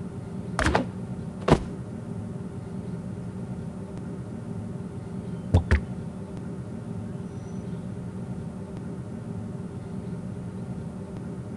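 A steady low mechanical hum, with a few sharp knocks: two in the first two seconds and a quick double knock about five and a half seconds in.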